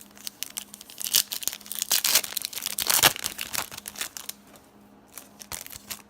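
Foil trading-card pack wrapper being torn open and crinkled by hand: a dense crackling run, loudest in the middle and thinning near the end.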